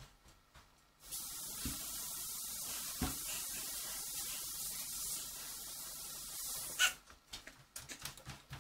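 A steady hiss that starts abruptly about a second in and cuts off suddenly after about six seconds, with a couple of faint knocks in it.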